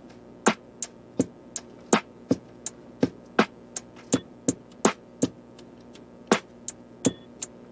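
Background music: a sparse beat of sharp, clicky percussion hits, two or three a second, over faint held tones.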